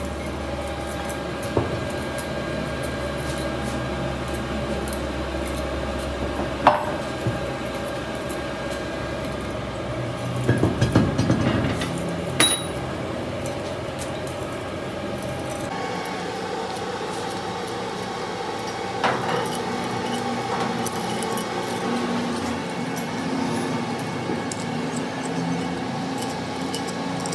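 Scattered metal clinks and taps of a thin steel rod worked in a bolt hole of a wheel hub to free a broken bolt, with a short burst of clinks about ten to eleven seconds in, over a steady hum.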